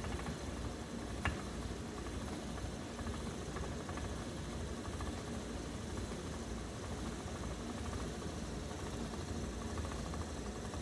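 Wooden treadle spinning wheel running, a steady low whirring rumble with faint light ticking, as Angora rabbit fur is spun into yarn. A single sharp click sounds about a second in.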